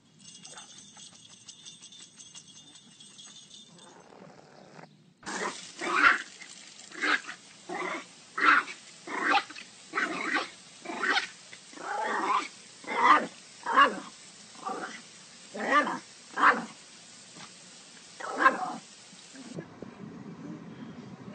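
A dog barking over and over, about one bark a second for some fourteen seconds, starting a few seconds in.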